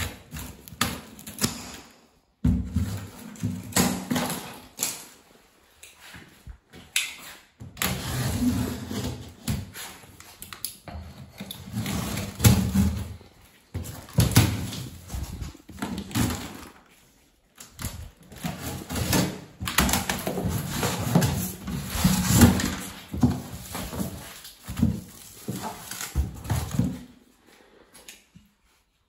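Cardboard shipping boxes being opened and handled, in irregular bursts of scraping, flapping and knocking, with short pauses between them.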